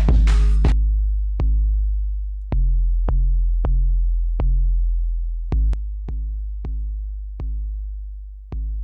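Electronic beat playing back: a drum pattern stops under a second in, leaving 808 bass notes alone. They are about a dozen deep, booming sub-bass notes, each with a click on the attack and a long fading tail.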